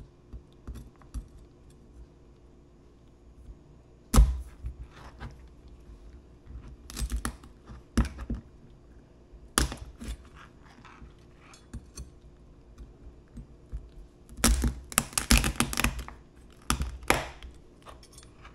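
Chef's knife cutting through live European green crabs on a plastic cutting board to dispatch them: irregular sharp knocks of blade and shell against the board. The loudest knock comes about four seconds in, and a quick run of knocks comes near the end.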